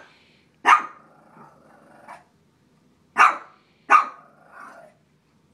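Small shih tzu barking: three sharp barks, about a second in, then about three seconds in and again just under a second later.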